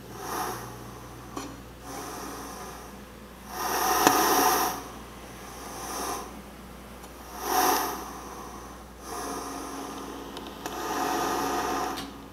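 Accordion bellows pushing and pulling air in about six breathy swells, each rising and fading over a second or two, with the loudest about four seconds in. It sounds like slow, heavy breathing rather than reed notes, an extended technique for the instrument.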